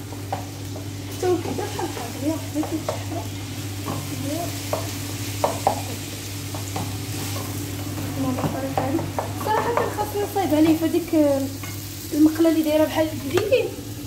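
Plastic spatula stirring and scraping pieces of meat frying in a non-stick pan, with a steady sizzle. Short scrapes and squeaks from the spatula come thicker in the second half, over a low steady hum.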